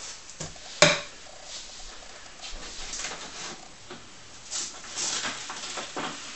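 A bagged plastic wash bottle is handled and set down on a table, with one sharp knock about a second in. Light plastic crinkling and handling clicks follow.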